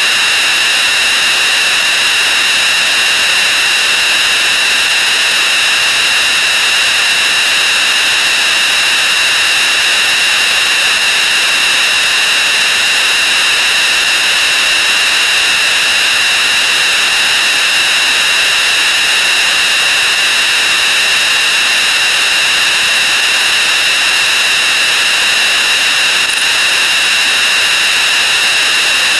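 A loud, unchanging wall of noise with several steady high-pitched tones over a hiss: many sound effects stacked on top of one another and sped up until they blur into one continuous drone.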